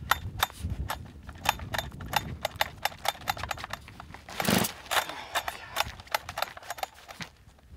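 Husqvarna 390XP two-stroke chainsaw just after a cold start, idling rough and uneven as a fast, irregular popping and crackling, with one louder burst about four and a half seconds in.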